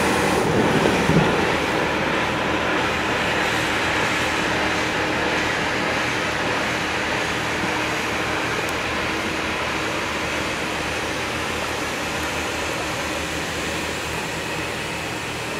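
Inflatable life raft filling from its gas cylinder: a steady, even hiss of gas rushing into the buoyancy tubes that slowly grows fainter as the raft nears full inflation, with a brief bump about a second in.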